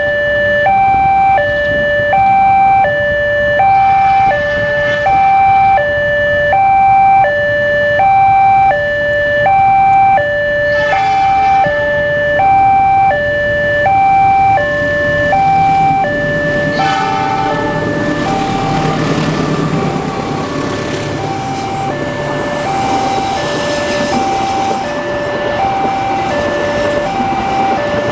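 Railway level-crossing warning alarm sounding a two-tone signal that steps back and forth between a higher and a lower tone about once a second. About two-thirds of the way in, the rumble of a diesel-hauled passenger train passing over the crossing rises beneath it, and the alarm grows fainter.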